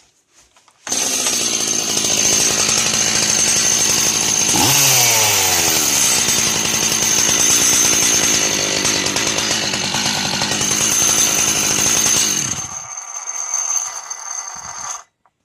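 Two-stroke chainsaw, run without bar and chain, starting about a second in and running near idle with a steady metallic ringing that comes from the clutch (the spring-loaded shoes and the drum), not from the engine's bearings. Around five seconds in it is briefly revved and drops back; it runs quieter near the end, then cuts off suddenly.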